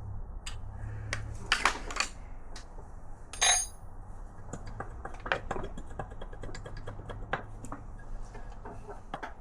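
Hand tools and metal engine parts clinking and knocking as a motorcycle engine is taken apart, with a loud ringing metal ping about three and a half seconds in.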